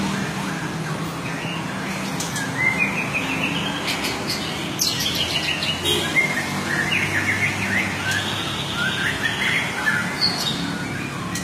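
A murai songbird singing in full voice: a long, varied song of quick rising whistled notes and rapid trills, over a low steady hum.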